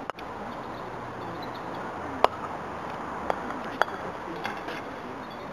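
Sharp clacks of hard croquet balls in play: one loud clack about two seconds in, then two lighter ones about a second later, over a steady outdoor background.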